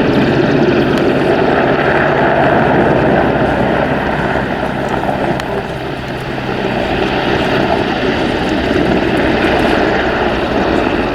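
Royal Navy AgustaWestland Merlin Mk2, a three-engine helicopter, flying past with steady rotor chop and turbine noise. It fades a little about six seconds in, then grows louder again.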